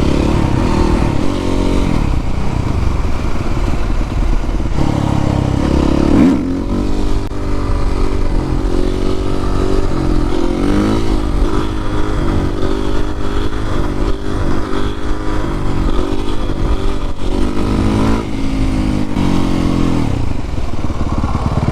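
Suzuki RM-Z450 supermoto's single-cylinder four-stroke engine under way, revving up and dropping back over and over as the bike accelerates and shifts through the gears.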